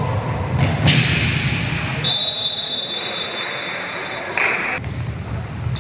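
Referee's whistle blown in one long blast of nearly three seconds, stopping play, over shouts and chatter echoing in a sports hall. A sharp thud of the ball comes about a second in.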